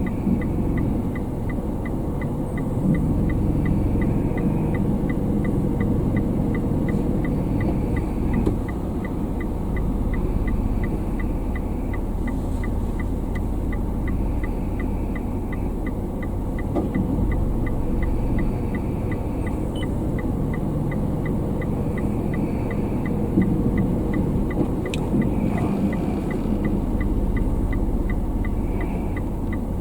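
Car driving, heard from inside: a steady low rumble of engine and road noise. A faint, even ticking runs alongside at about two ticks a second.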